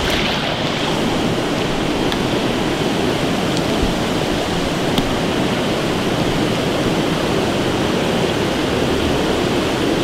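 Swollen river rushing over a low cascade and rapids: a steady, even wash of moving water.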